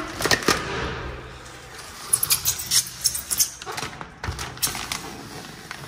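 Protective plastic film being peeled off a stainless-steel lift door in several tugs, each tug giving a cluster of quick crackles.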